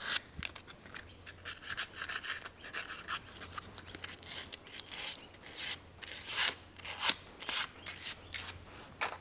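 Sandpaper rubbed by hand over the metal seal surface of a tractor's front hub spindle, in short uneven rasping strokes with a few louder ones in the second half, cleaning off burrs and dirt before a new seal is fitted.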